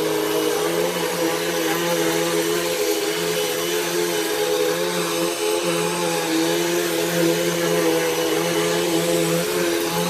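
Hoover Elite Rewind bagless upright vacuum cleaner running steadily as it is pushed over a rug: a motor hum and whine under a rushing air hiss.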